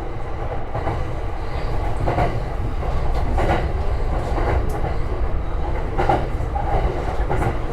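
Electric commuter train running on track, heard from inside the leading car: a steady low rumble, with several clacks from the wheels passing over rail joints at uneven intervals.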